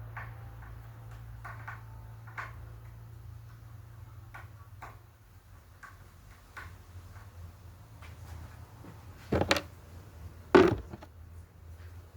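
Tools and parts being handled at a workbench: scattered light clicks and taps, then two louder clattering knocks about nine and ten and a half seconds in, over a low steady hum.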